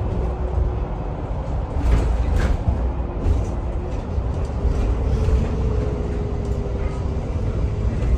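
Vehicle running: a steady low rumble with a faint whine that rises slightly about five seconds in.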